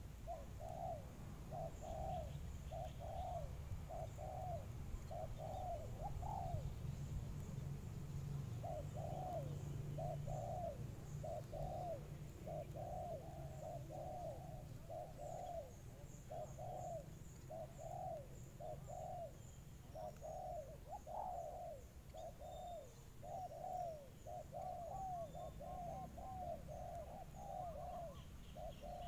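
A dove cooing over and over in short, arched coos, roughly two a second, with a brief pause about seven seconds in. Under it is a steady low rumble, and faint high chirps from small birds come and go.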